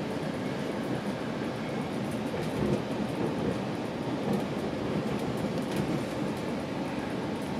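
Steady rumble of a GO Transit commuter train running along the track, heard from inside the coach, with a couple of slightly louder jolts partway through.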